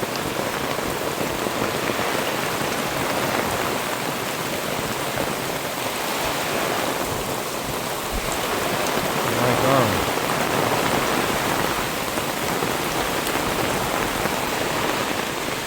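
Torrential rain pouring steadily and drumming on the tent.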